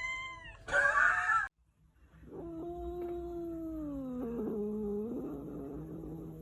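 A cat's short falling meow, then a loud harsh screech. After a brief break comes a long, low, drawn-out cat yowl that slowly falls in pitch.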